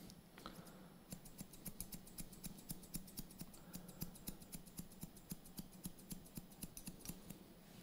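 Hairdressing scissors snipping through hair in a quick, quiet run of snips, about three a second, starting about a second in.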